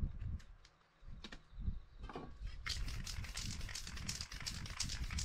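Soft knocks and rustles as a paper stencil is laid and pressed down on a board. About two and a half seconds in, an aerosol spray paint can starts spraying, a pulsing hiss that runs on as the paint is worked across the stencil.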